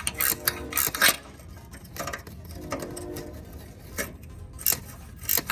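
Ratchet wrench clicking and metal hand tools clinking while the turbo-to-downpipe studs are worked loose, with a short squeak twice as the fastener turns.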